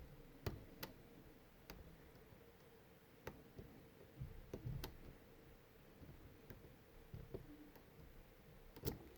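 Faint, irregular light clicks of a lock pick working the pins inside a Medeco Biaxial 51S lock cylinder while it is being picked, with quiet gaps between the clicks.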